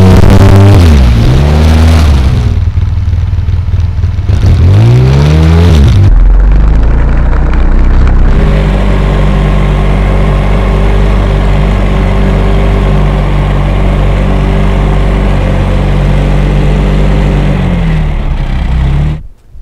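ATV engine revving up and down as it pushes through mud and water, then running at a steady speed for about twelve seconds before cutting off suddenly near the end.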